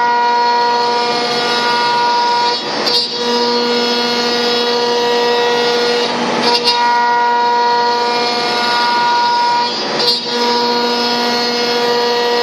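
CNC router spindle whining steadily as it cuts MDF, with the hiss of the bit in the board. The whine dips and shifts three times, about every three and a half seconds.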